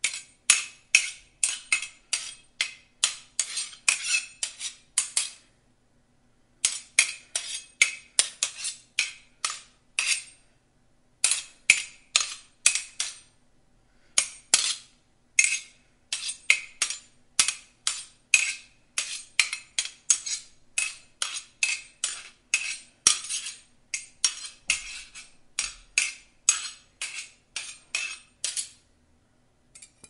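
Swords clanging: steel blades striking one another in quick runs of bright, ringing clashes, about three or four a second, broken by short pauses every few seconds.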